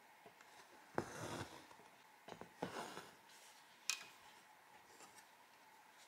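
Embroidery thread being drawn through fabric stretched in a hoop: two short rasping pulls, about a second in and about two and a half seconds in, and a sharp click a little later.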